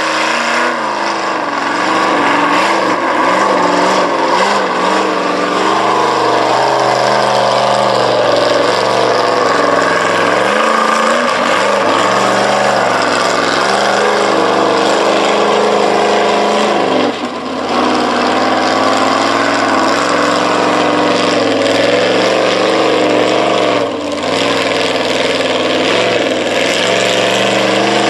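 Mud-bogging truck engine running hard at high revs, its pitch wavering up and down as it is held on the throttle. The sound drops out briefly twice, about two-thirds of the way in and again near the end.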